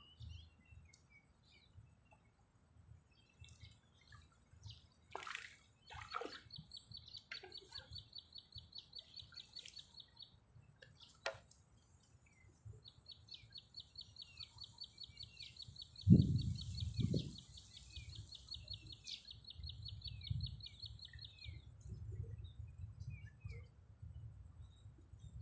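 Birds calling outdoors, with two long, rapid, even trills of several seconds each over a steady high-pitched whine and scattered chirps. A loud low thump about two-thirds of the way through, with low rumble.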